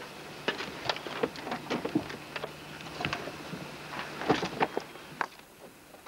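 Irregular clicks and knocks of harness buckles and cockpit fittings as a ground crewman straps the pilot into a MiG-21 ejection seat, over a faint steady hum.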